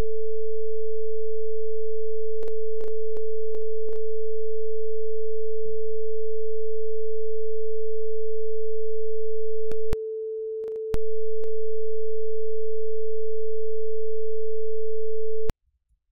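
Arturia ARP 2600 synthesizer holding a steady, pure sine-like tone at about 450 Hz, with several sharp clicks over it. The tone drops in level for a moment about ten seconds in and cuts off suddenly near the end.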